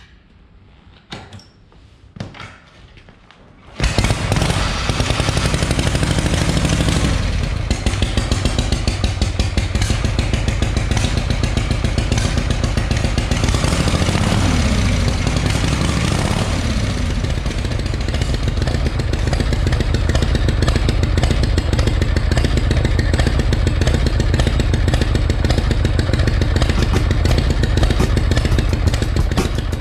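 1951 Harley-Davidson FL Panhead V-twin kick-started. After a few knocks it catches about four seconds in and settles into a steady, loud idle through straight open exhaust pipes.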